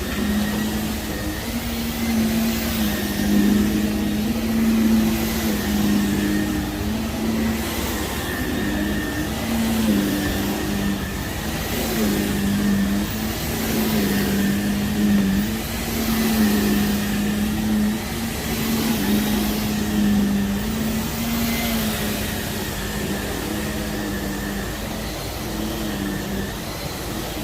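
Vacuum cleaner running over heavily soiled carpet, pushed back and forth in strokes: a steady motor hum that swells and eases about every second or two.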